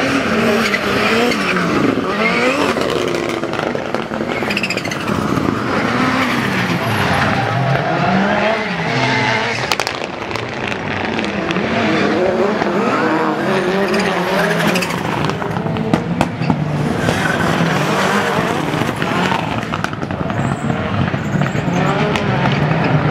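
Autocross race cars' engines revving hard and dropping back again and again as they drive the dirt track, more than one car at a time. A few sharp cracks stand out about ten and sixteen seconds in.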